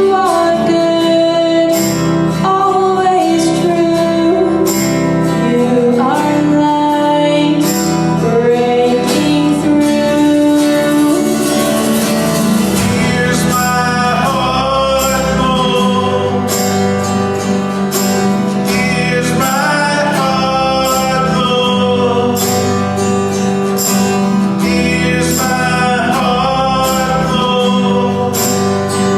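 A song sung over steady acoustic guitar strumming.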